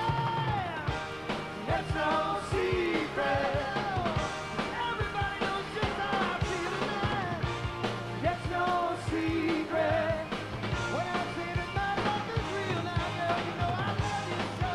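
Live rock band performing: sung vocals over drums and electric guitar.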